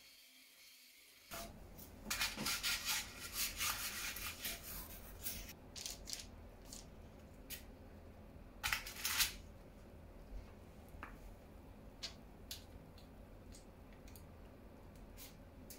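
Light handling noises around a paper-lined springform cake pan: a few seconds of dense rustling and scraping starting about two seconds in, a short louder rustle near the middle, then scattered soft ticks and taps.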